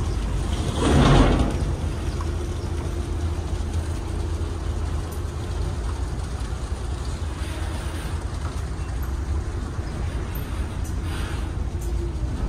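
Moored ferry's engine idling with a steady low rumble, and a brief louder rush of noise about a second in.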